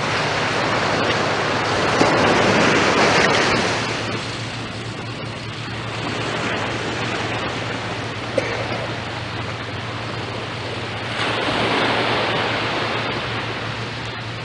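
Ocean surf washing onto the beach, swelling about two seconds in and again later on, over a steady low hum.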